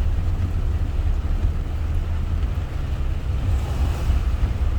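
Heavy tropical rain drumming on a moving car, heard from inside the cabin over a steady low road and engine rumble.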